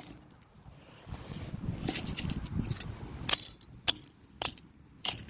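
A handful of sharp clicks and clinks at irregular intervals, about five over three seconds, over a low rumble.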